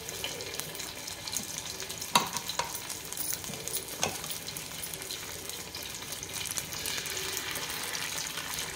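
Masala-coated fish pieces sizzling in hot oil on a cast-iron dosa tawa: a steady frying hiss. A few sharp knocks and clicks come through it, the loudest about two seconds in.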